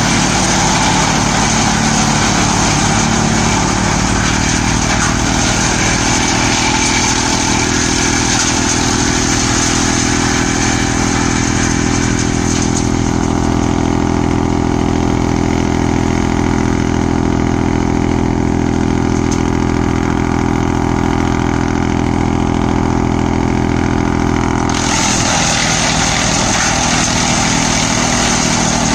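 Tractor-powered wood chipper running steadily with its engine, shredding green branches fed into it. About 13 seconds in the shredding noise stops and only the steady hum of the engine and the empty spinning chipper remains, until branches go in again about 25 seconds in.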